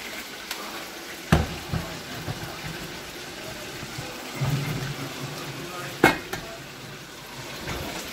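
Steady hiss of chicken frying in oil, broken by two sharp clanks of a stainless steel pan and lid being handled, about a second in and again about six seconds in.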